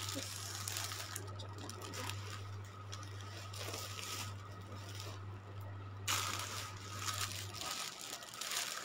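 Faint rustling of clothes and plastic packaging, briefly louder about six seconds in, over a steady low hum that stops near the end.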